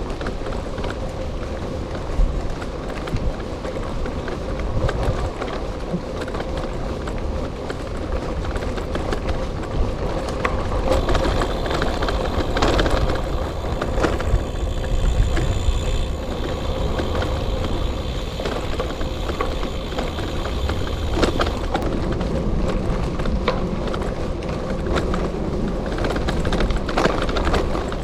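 Gravel bike rolling along an unpaved trail: steady tyre crunch and frame rattle with small clicks throughout, over a low rumble of wind on the microphone. A faint thin high tone joins for about ten seconds in the middle.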